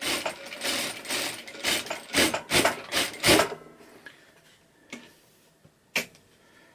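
Heavy fabric being shifted and turned on the table of an industrial sewing machine, with irregular rustles and several thumps for about three and a half seconds. A sharp click follows about six seconds in.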